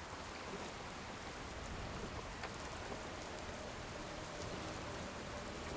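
Steady rain falling, with a few single drop ticks standing out.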